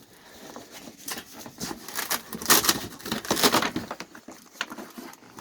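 Rustling and crinkling of mattress packaging being handled, in an irregular run of crackles that is loudest in the middle.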